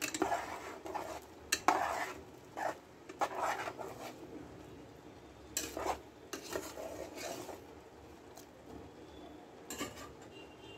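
A spoon stirring a thick, watery masala gravy in a metal pressure cooker: irregular scrapes and clinks of metal against the pot. It is quieter over the last few seconds apart from one knock near the end.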